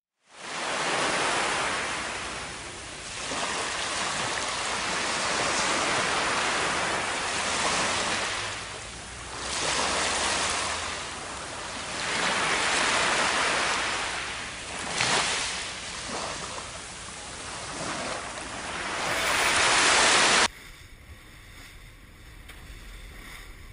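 Surf washing up a beach, swelling and fading every few seconds. Near the end it cuts off suddenly to the quieter sound of a small boat running on open water.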